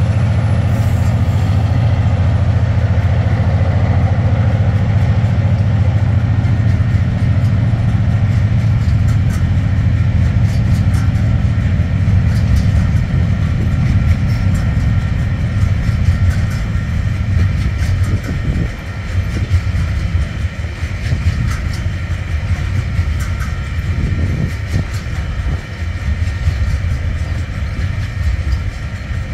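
Container freight train rolling past as it climbs a grade: the low drone of its diesel locomotives, working under load, fades over the first half, leaving the rumble of wagons with wheels clicking over the rail joints.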